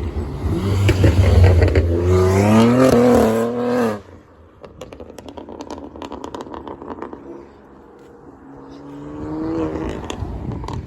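A car going past close by, its engine rising in pitch as it accelerates, cutting off abruptly about four seconds in. Quieter traffic with scattered clicks follows, and another vehicle approaches near the end.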